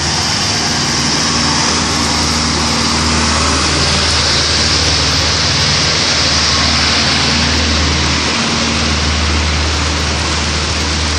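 Floodwater rushing along a street, a steady loud hiss, with a vehicle engine's low hum running underneath.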